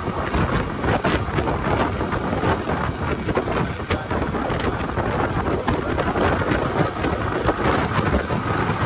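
Steady, loud wind rush on a helmet-mounted phone's microphone from a motorcycle riding at road speed.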